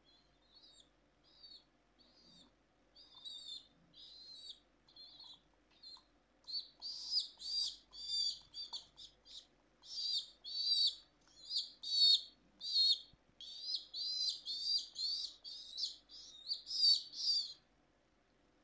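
Baby pigeon (squab) peeping: a string of short, high-pitched cheeps, soft and sparse at first, then louder and in quick succession from about six seconds in, stopping shortly before the end. These are the food-begging calls of a squab being hand-fed.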